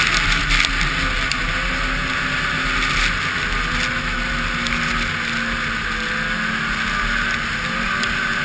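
2007 Polaris Dragon 700 snowmobile's two-stroke twin engine running at trail speed, its pitch wavering gently up and down with the throttle, over a steady rush of wind.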